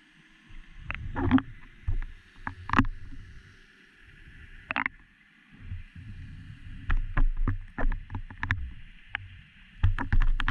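Muffled underwater sound through a submerged action camera's housing: an uneven low rumble of moving water with a steady faint hiss, and sharp clicks and knocks at irregular times, more frequent in the second half.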